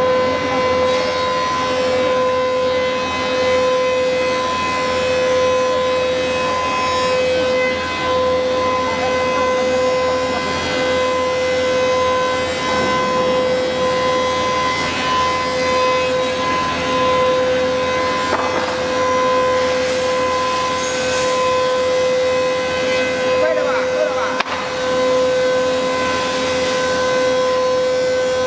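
HICAS HC2063 double-side wood planer running, its four-knife cutterheads giving a steady high whine over machine noise. Several times, rougher cutting noise rises briefly as boards feed through.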